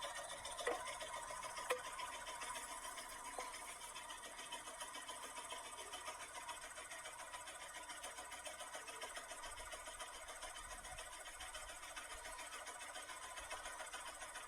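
Home-built scroll saw running, its blade mechanism working up and down in a fast, steady clatter, with a couple of knocks in the first two seconds.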